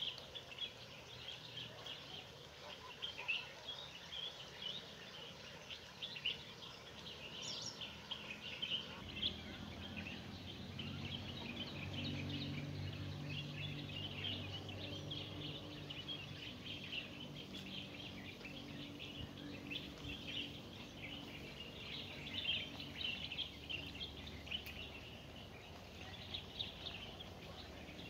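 Many small birds chirping and twittering continuously in an outdoor chorus. About a third of the way in, a low steady hum joins underneath and fades again near the end.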